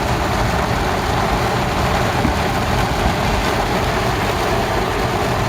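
Heavy tropical downpour: a steady, even rush of rain, with a vehicle's engine running low underneath.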